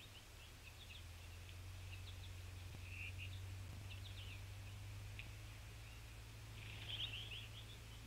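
Small songbirds giving scattered short, high chirps and call notes, with a quick run of them about seven seconds in, over a faint low steady hum.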